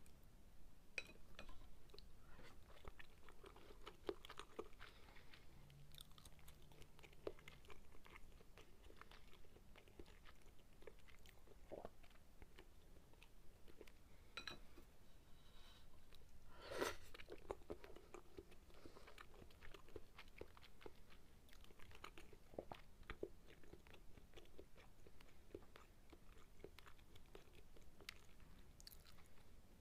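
Quiet, close-miked chewing of sukiyaki, with small wet mouth clicks and light taps of chopsticks on the pan and bowls. One sharper click comes a little past the middle.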